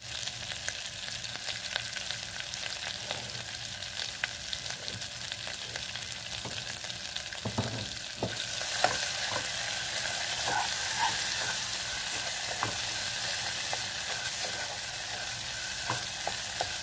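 Ground spice paste with lemongrass and lime leaves sizzling in hot oil in a saucepan, being sautéed until fragrant. The sizzle gets louder about halfway through, and a spatula stirring the paste makes occasional scrapes and taps against the pan.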